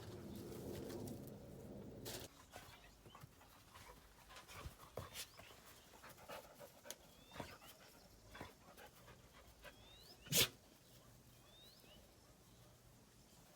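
An animal panting for about two seconds, then scattered light clicks and faint short chirps, with one sharper, louder click about ten seconds in.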